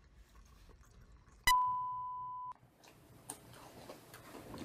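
A single steady electronic beep, a pure tone lasting about a second, that starts with a click about one and a half seconds in and cuts off sharply. Around it are only faint room sound and light clicks.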